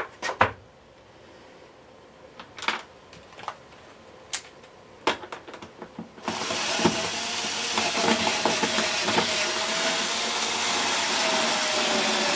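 Small clicks and taps of a screwdriver and a screw against the hard plastic casing of a vacuum cleaner as the screw is fitted. About six seconds in, a steady hiss starts suddenly and carries on.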